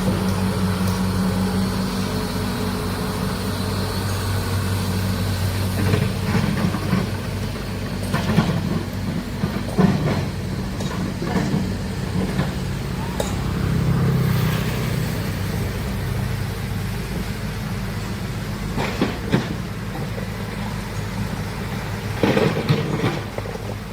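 Heavy excavator's diesel engine running steadily, with scattered metallic clanks and knocks from the machine working.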